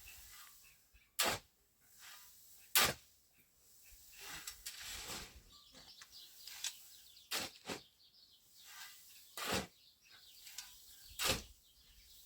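Six sharp knocks at uneven intervals, roughly one every one to two seconds, with soft rustling in between.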